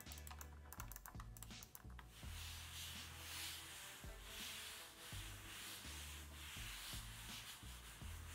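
Razer DeathAdder Elite mouse on its stock skates sliding back and forth across a desk pad with heavy drag. It makes a rough scraping rub that swells and fades with each stroke, with rapid ticking in the first two seconds.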